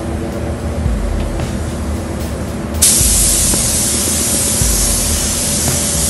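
Gravity-feed paint spray gun hissing. The hiss is weaker for the first few seconds, then the gun sprays at full flow from about three seconds in.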